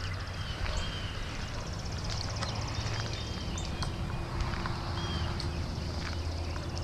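Birds chirping and calling at dawn, many short scattered calls, over a low steady rumble.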